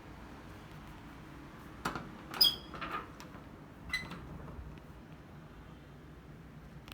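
Daikin ceiling air conditioner running with a steady hum and hiss of airflow. Between about two and four seconds in come four short, sharp clicks, the loudest near the middle.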